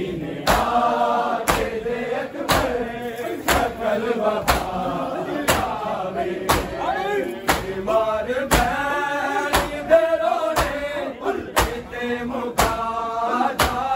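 Male voices chanting a noha, cut through by a crowd of men beating their chests in unison (matam): sharp slaps at a steady pace of about one per second.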